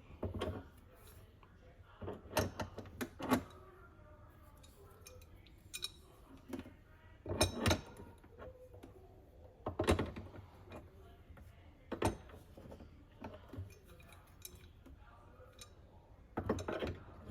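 Metal-on-metal clinks of a wrench on the steam wand fitting of a Breville espresso machine as it is tightened: irregular sharp clinks a few seconds apart, some in quick clusters.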